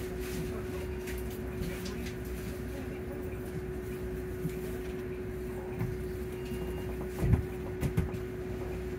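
Volvo hybrid bus heard from inside the passenger saloon: a steady, even-pitched hum from the drivetrain over a low rumble. Two short knocks come near the end.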